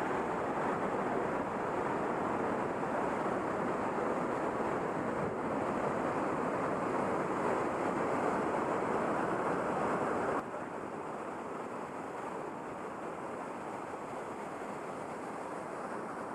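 Steady rush of a river's white-water rapids and waterfall. The sound drops suddenly to a lower, duller level about ten seconds in.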